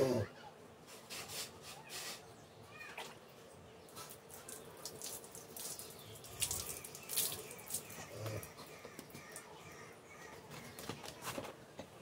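Wet splashing and rubbing as a calf's coat is washed by hand, in irregular short bursts. A brief call at the very start, falling in pitch, is the loudest sound, and a short voice-like call comes about eight seconds in.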